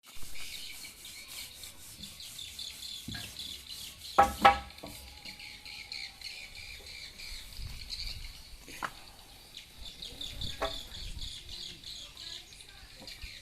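Steady high, fast chirping of outdoor wildlife, with a few sharp knocks; the two loudest come close together about four seconds in.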